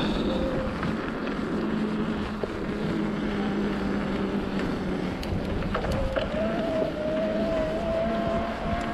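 Mountain bike riding along a trail: a steady low rumble of tyres and wind on the microphone, with a low hum and, from about six seconds in, a thin whine that slowly rises in pitch.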